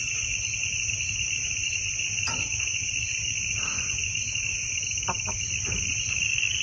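Evening chorus of crickets: a steady, high, unbroken trill in two pitch bands with a faint regular pulsing, over a low steady rumble. A few faint short clicks come about two seconds in and again around five seconds.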